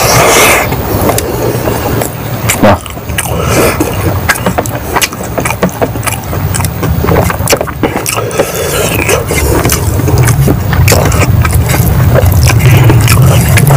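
Close-up chewing and lip-smacking of rice and egg curry eaten by hand, a dense run of small wet mouth clicks, over a steady low rumble that grows stronger in the second half.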